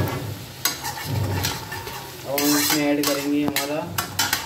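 Steel ladle stirring black soybeans and onions sizzling in hot oil in an iron kadhai, with sharp clinks of the ladle against the pan. A held tone sounds for about a second and a half past the middle.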